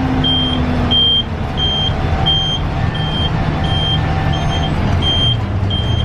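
Bus engine droning steadily, heard from inside the driver's cabin, with an electronic warning beeper sounding short high beeps about one and a half times a second.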